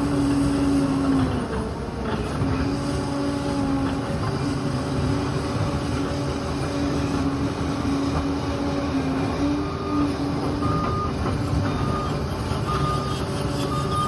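Liebherr PR 746 crawler dozer at work: its diesel engine and tracked undercarriage running steadily, with a wavering whine over the low engine rumble. From about ten seconds in, a reversing alarm beeps roughly once a second.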